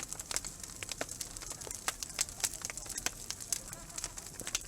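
Wood bonfire crackling, with irregular sharp pops and snaps over a soft steady hiss.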